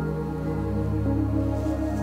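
Calm background music with long held chords.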